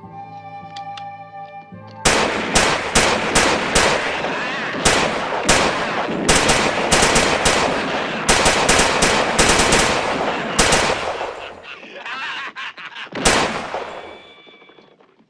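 Rapid gunfire from several guns, a few shots a second and overlapping, with echoing cracks, for about nine seconds. A last single shot comes near the end. Held music tones sound before the shooting starts about two seconds in.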